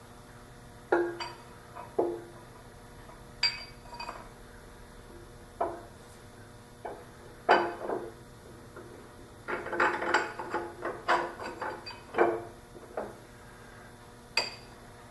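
Metal lathe parts clinking and clanking as they are handled and fitted, about a dozen separate knocks with a brief ring after each, busiest around ten seconds in.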